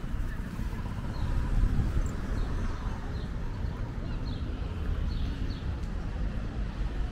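Outdoor street ambience: a steady low rumble of city traffic, with a small bird chirping briefly several times.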